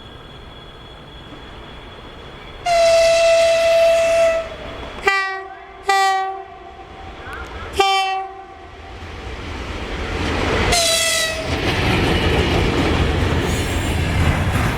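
VL10 electric locomotive horns: one long blast, then three short blasts in a lower two-note tone, then one more short blast at the first pitch. Meanwhile the rumble of a train grows louder and runs on with wheels clacking on the rail joints as it passes.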